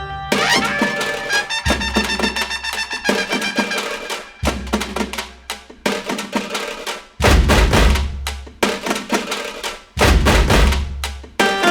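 Instrumental background music: pitched notes over drum hits, with heavy bass hits coming in about seven seconds in and again near ten seconds.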